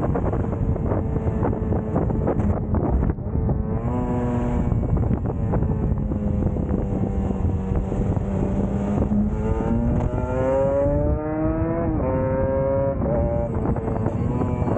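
Vehicle engine running under way over a steady rushing noise, holding a steady pitch, then revving up and dropping sharply about twelve seconds in, as at a gear change.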